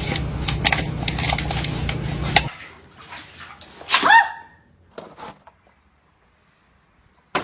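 A steady low hum with scattered clicks that cuts off suddenly about two and a half seconds in. About four seconds in, a dog gives a single short, pitched vocalisation.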